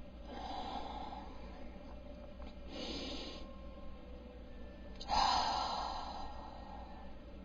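A man breathing in and out between hiccups: three breaths, a faint one, a short one about three seconds in, and a louder one about five seconds in that trails off slowly.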